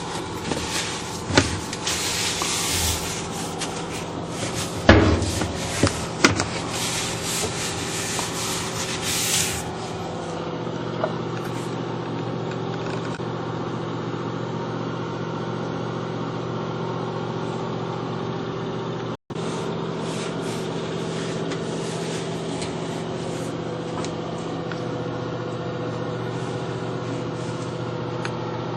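Irregular scraping and rubbing strokes for about the first ten seconds over a steady machine hum, which then runs on alone; the sound drops out for an instant about two-thirds of the way through.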